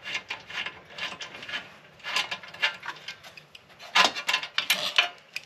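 Socket ratchet wrench being worked on the exhaust bolts, a run of short rasping strokes with a louder cluster about four seconds in.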